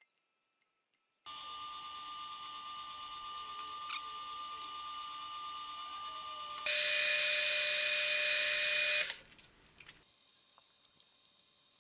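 Metal lathe running and turning a steel workpiece. A steady hiss with a fixed whine starts suddenly about a second in and gets much louder around the middle, then stops abruptly, leaving a few faint ticks.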